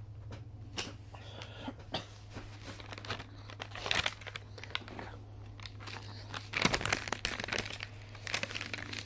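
Small plastic snack bag crinkling as it is handled and pulled open, in irregular bursts that are loudest about four seconds in and again from about six and a half seconds on, over a low steady hum.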